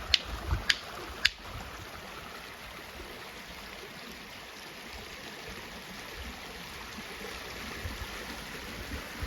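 Three sharp clicks in the first second and a half, then water running steadily like a stream.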